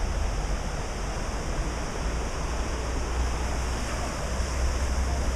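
Steady rushing outdoor noise with a deep rumble underneath.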